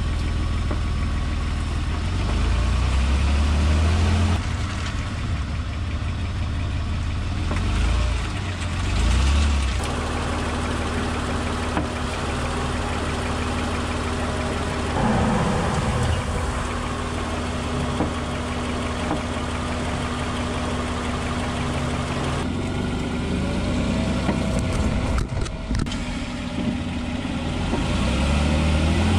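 Road and engine noise of a 2004 Honda Pilot being driven, heard from under the car, with a clunk from the front suspension near the end. The clunk is the sign of worn subframe bushings, which the dealer's diagnostics found.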